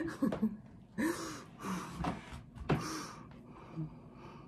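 Several short, breathy gasps from a person, about one a second, some with a brief bit of voice in them.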